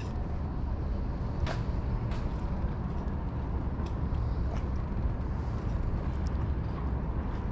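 Steady low outdoor rumble with a faint steady hum and a few faint, brief high clicks.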